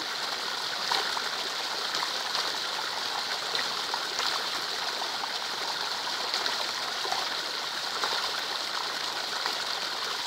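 Rain falling steadily into a puddle: a dense, even hiss of drops hitting water, with single nearby splats standing out now and then.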